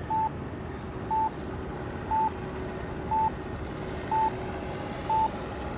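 An RC transmitter's flight timer beeping, one short high beep about once a second, over the steady drone of the model plane in flight.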